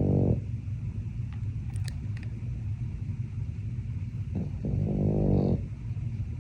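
Sleeping pug snoring: one snore trails off just at the start and another lasting about a second comes around four and a half seconds in, each a buzzing rattle, over a low steady rumble of breathing.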